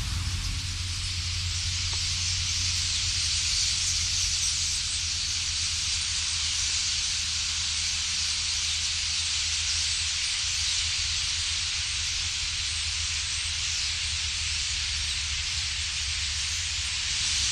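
Steady hissing rush of a vast flock of common starlings massed over reed beds, with a low rumble underneath.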